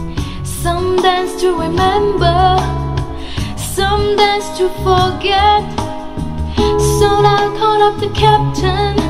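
Pop song with a female singer played back through a pair of Bose 101RD bookshelf speakers. The voice carries a wavering melody over steady bass notes.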